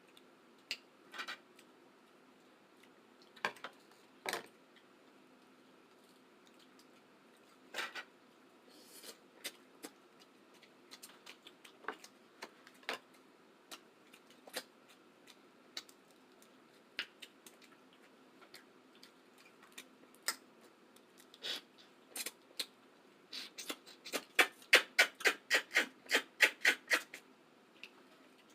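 Close-miked eating sounds at a seafood boil: scattered clicks and snaps of food being handled and bitten. Near the end comes a quick, regular run of loud chewing clicks, about four a second, for some three seconds.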